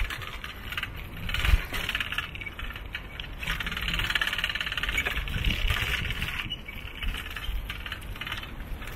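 Bicycle and handheld camera rattling as the bike rolls over a rough surface: a fast, continuous metallic chatter, with a few low bumps.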